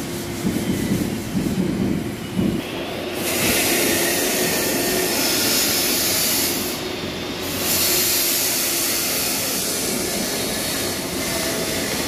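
Steady rushing noise with a strong hiss that comes in about three seconds in and drops out briefly around seven seconds.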